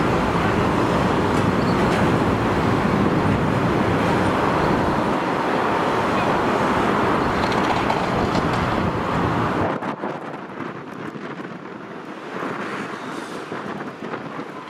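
Jet airliner's engines at takeoff power, a loud steady roar mixed with gusty wind on the microphone. About ten seconds in it cuts off abruptly to a much quieter background.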